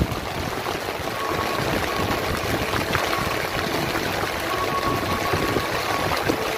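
Steady rushing noise of water at a small fishing boat at sea.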